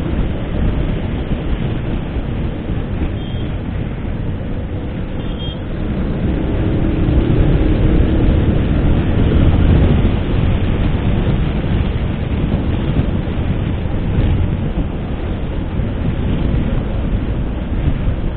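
Wind rushing over the microphone with road and engine noise from a Suzuki Hayabusa motorcycle under way, swelling louder for a few seconds around the middle.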